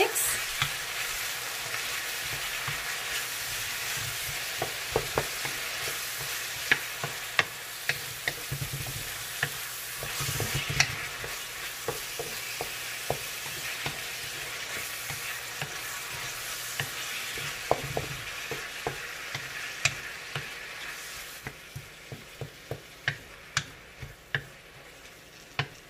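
Garlic, onions and tomatoes sizzling in oil in a pan as they are stirred, with frequent short clicks and scrapes of the utensil against the pan. The sizzle thins out gradually toward the end.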